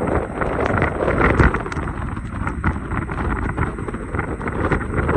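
Storm wind gusting to about 55 knots, blowing across the microphone as a steady rush broken by quick, irregular thumps.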